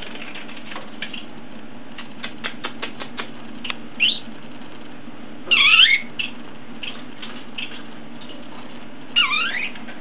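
Young budgerigar chirping three times: a short rising chirp about four seconds in, then two louder sweeping calls around six and nine seconds. A run of quick light ticks comes shortly before the first chirp.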